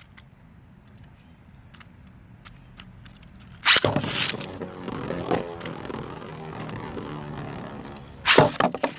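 A few faint clicks, then a little over three seconds in a loud rasping burst as beyblades are ripped off their launchers, followed by the tops whirring and scraping as they spin and grind against each other in the stadium. A second loud burst comes near the end, a hard clash or another rip.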